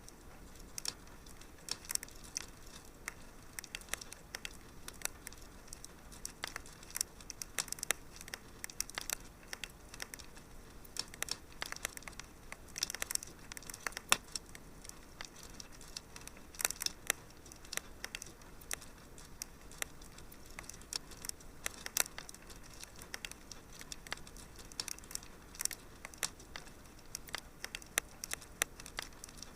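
Wood fire crackling: irregular sharp pops and snaps over a faint steady hiss, with a few louder pops scattered through.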